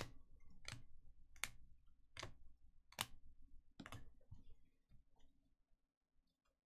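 Faint sharp clicks, about six of them, a little under a second apart, then near silence.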